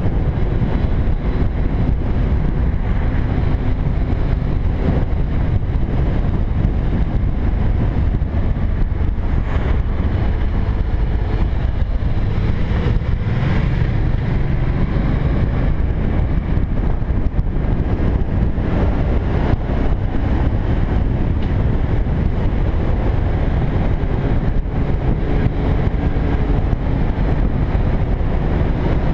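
Cruiser motorcycle engine running steadily at road speed, mixed with wind rushing over the microphone.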